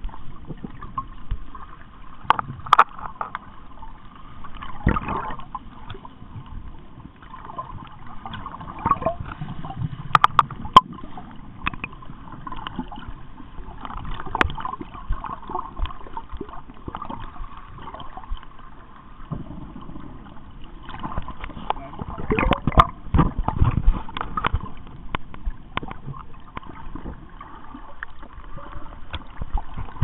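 Sea water sloshing and gurgling, with scattered clicks and knocks, the loudest cluster about two-thirds of the way through.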